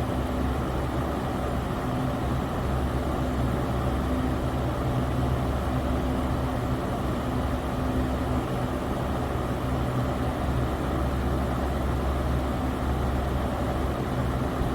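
Electric fan running steadily: an even whoosh of moving air with a low motor hum.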